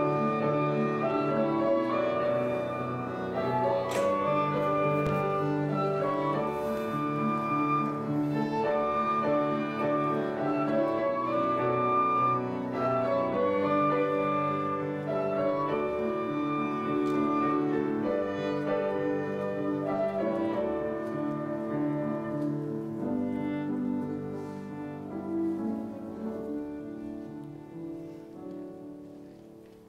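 Slow instrumental processional music with long held notes, fading out over the last several seconds.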